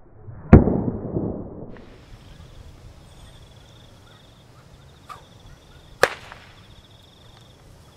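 Whip cracks: one loud crack about half a second in, followed by a rolling echo, and a second, sharper crack about six seconds in.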